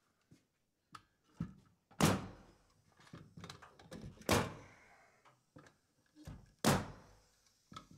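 Bostitch pneumatic nailer firing nails through 5/8-inch plywood sheathing: three sharp shots a little over two seconds apart, each ringing briefly in the small room, with lighter knocks in between.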